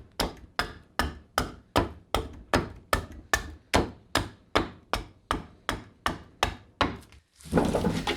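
A hand edge tool chopping into green black walnut in quick, even strokes, about two and a half a second, dressing the face of the split log. The strokes stop about seven seconds in, followed by a short scraping rustle.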